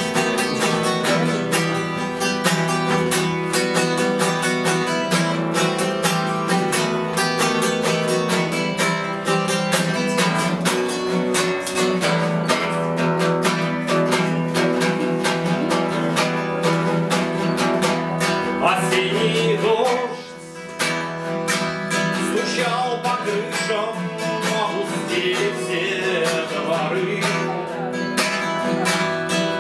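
Classical acoustic guitar played solo as an instrumental passage between sung verses: a fast, continuous run of plucked and strummed notes, with a short drop in level about twenty seconds in.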